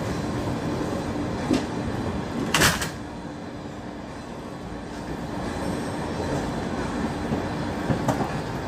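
Inside a former JR East 205 series KRL commuter electric train running along the line: a steady rumble of wheels on rail with a low hum that stops near the end. A sudden loud rush of noise lasts under half a second about two and a half seconds in, and a few sharp clacks come from the wheels over rail joints.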